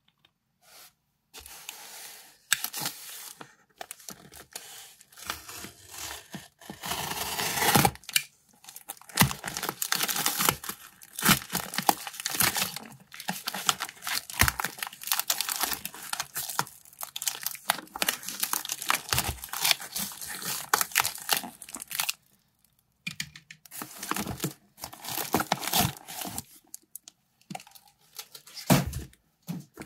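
A paper mailing envelope being slit with a box cutter and torn open, its paper and plastic packaging crinkling. The tearing and rustling comes in irregular stop-and-go spells, with a short pause about two-thirds of the way through and a few clicks near the end.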